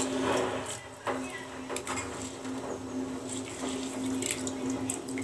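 Handfuls of raw rice dropped into a stainless steel pot of hot water, with light splashing and a few small clicks, over a steady low hum.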